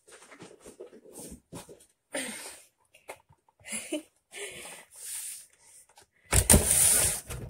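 Handling noise as a phone camera and a cardboard 12-pack beer box are moved about: a run of short rustles and scrapes, then a loud rubbing scrape lasting about a second near the end.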